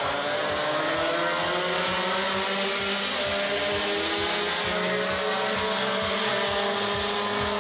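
Several two-stroke racing kart engines accelerating together, their pitch rising steadily as they pull out of a corner.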